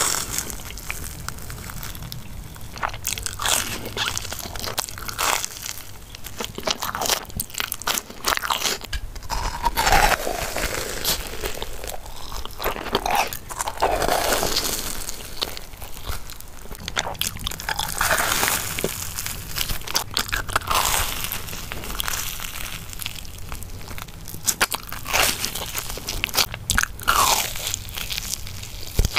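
Close-miked eating of fried cheese balls: the crisp fried shells crunch with many irregular crackles as they are bitten, along with chewing of the soft cheese filling.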